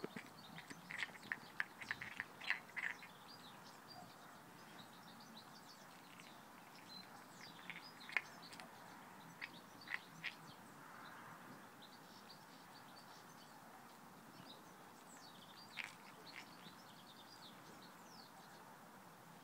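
Deerhound lurcher pup crunching eggshell and licking at a broken raw egg: short crisp cracks in clusters over the first few seconds, again around eight to ten seconds in and once near sixteen seconds. Birds chirp faintly in the background.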